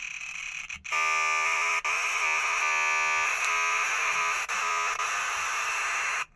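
Harsh electronic buzzing from an old book. A steady pitched tone with many overtones starts about a second in, turns rougher partway through, and cuts off suddenly near the end.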